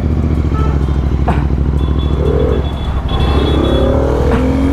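Motorcycle engine running while riding in traffic, with the engine note rising over the last second and a half as it picks up speed. There are a couple of sharp clicks and a brief high steady tone partway through.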